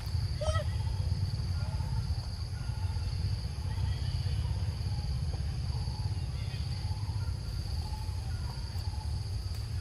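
Forest ambience: a steady high-pitched insect drone over a continuous low rumble, with faint scattered chirps. A short, squeaky call stands out about half a second in.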